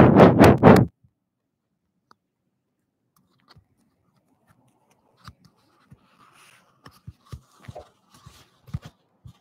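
Microphone handling noise during a sound check: a loud run of rapid scratchy bursts, about three a second, cuts off about a second in. After a few quiet seconds come faint scattered clicks and knocks.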